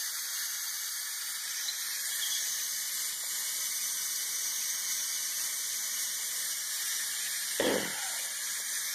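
Steam hissing steadily out of the opened pressure-release valve of a Cuisinart electric pressure cooker, venting the built-up pressure after cooking. A brief bump about three quarters of the way through.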